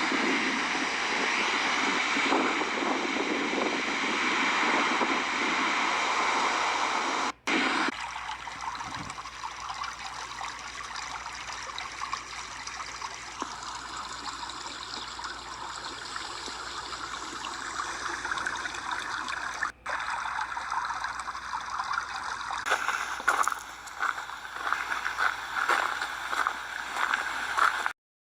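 Steady rush of running water, like a stream, dropping out briefly twice.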